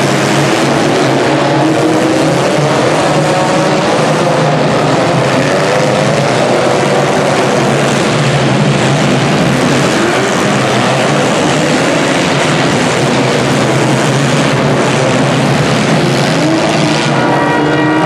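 Engines of several compact demolition-derby cars running and revving together in a loud, steady din, their pitch rising and falling as the drivers work the throttles.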